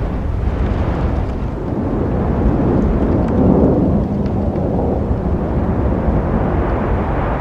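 Road traffic noise: a steady low rumble of engines and tyres, swelling as a vehicle passes about halfway through.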